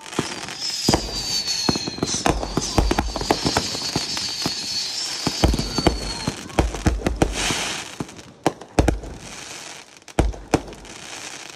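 Consumer firework cakes going off: a rapid string of bangs and crackling, with a high whistle sliding slowly down in pitch over the first six seconds. The bangs then thin out to a few separate booms near the end.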